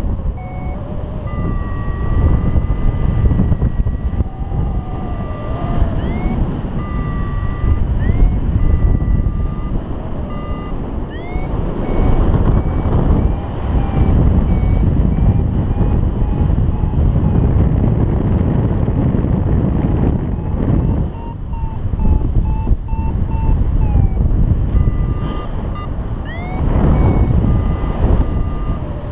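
A paragliding variometer beeps in short electronic tones that shift in pitch, with quick upward-gliding chirps, which is the kind of audio it gives while climbing in lift. Loud wind rush on the microphone runs under it.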